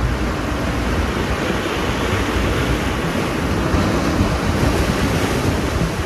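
Small ocean waves breaking and washing in over rocks and a sandy cove, a steady rush of surf, with wind rumbling on the microphone.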